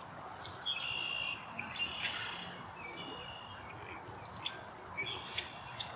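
Birds chirping: many short, high-pitched notes and brief held whistles overlapping, with a quick run of sharp clicks near the end.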